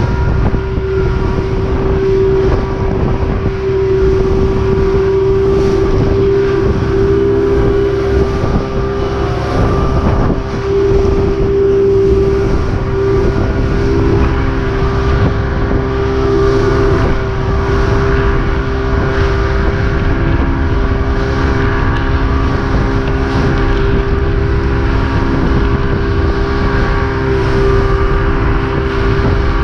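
Mercury outboard motor running steadily at speed, a constant high-pitched drone, over the rush of the hull through choppy water and wind on the microphone.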